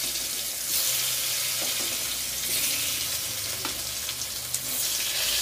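Potato chunks frying in hot oil in a kadhai: a steady sizzle, with a couple of brief knocks as more pieces are dropped in.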